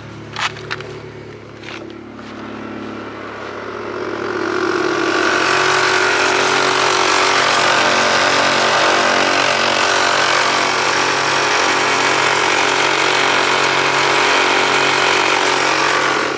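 Air suspension compressor of an Airtekk stage 2 kit running steadily and building pressure to fill the air bags. It swells in loudness about four seconds in. Two short sharp clicks come before it.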